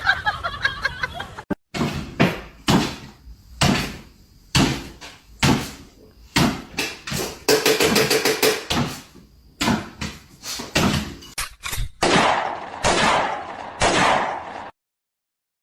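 A rapid series of knocks and bangs, roughly one or two a second, with a few longer rushing noise bursts near the end before the sound cuts off suddenly.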